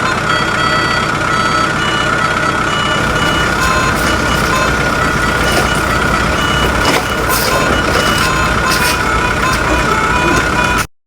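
Truck sound: a steady rumbling noise with a constant high whine, cut off abruptly near the end.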